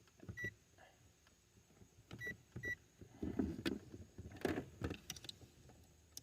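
Digital multimeter beeping three short, high beeps, amid clicks and rustling as the meter and its test leads are handled.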